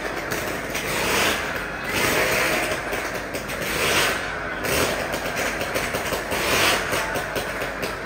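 Motorcycle engines revving inside a steel-mesh globe of death, the sound swelling and fading in waves every second or two as the riders circle inside the sphere.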